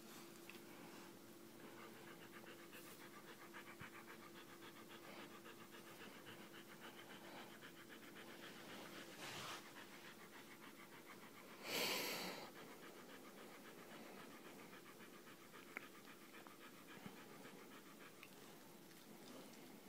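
Siberian husky panting fast and quietly. About twelve seconds in there is a short, louder burst of breathy noise.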